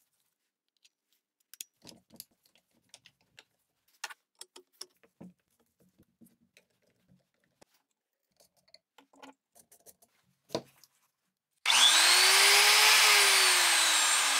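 Makita 9005B angle grinder started about 11.7 s in after scattered faint clicks and taps of handling: the motor whine climbs briefly, then sinks slowly while a loud hiss of the spinning motor and gears goes on. The test run of a grinder repaired with fresh gear grease and new carbon brushes, which runs.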